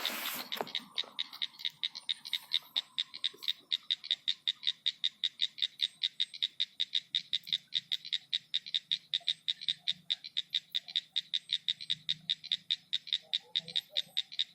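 A frog calling in a steady, rapid train of high clicking pulses, about six a second, without a break. A brief noisy rustle at the very start.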